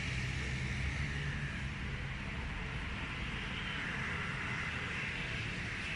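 Steady city street noise: a low traffic rumble, strongest for the first second and a half, under an even hiss.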